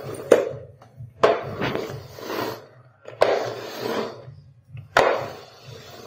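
Manual push sweeper (spin broom) pushed back and forth over a tiled floor, four strokes. Each stroke starts with a click from the plastic housing and is followed by the rattling brush of its spinning side brushes, fading out.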